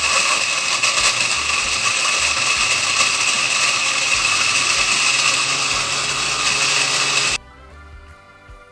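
Countertop blender running steadily, grinding leftover grated-coconut pieces with water into fresh coconut milk. The motor cuts off suddenly about seven seconds in.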